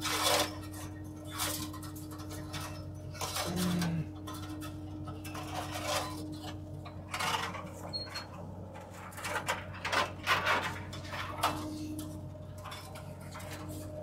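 A stray piece of old wire being handled: irregular metallic clinks, rattles and scrapes, some in quick clusters, over a steady low hum.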